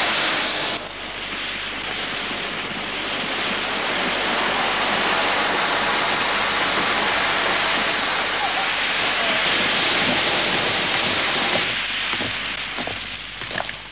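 Anar (flowerpot fountain firework) burning: a loud, continuous rushing hiss of spraying sparks. It swells about four seconds in, stays strong for several seconds, then dies away near the end.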